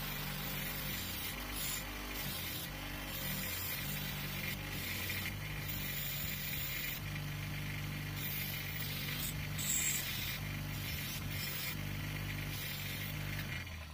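Bench grinder running with a wire brush wheel scrubbing rust and old paint off a steel adjustable spanner: a steady motor hum under a scratchy hiss that swells and fades as the spanner is pressed to the wheel and moved about.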